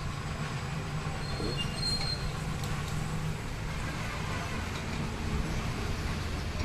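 Steady low machine hum with background noise, dropping away about halfway through, and a brief high-pitched whine about a second and a half in.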